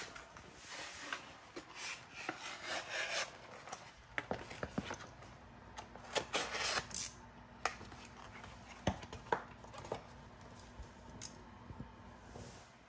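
Scissors snipping a sheet of gloss black vinyl wrap film, then the film rustling and crackling as it is bent and handled, with scattered sharp clicks.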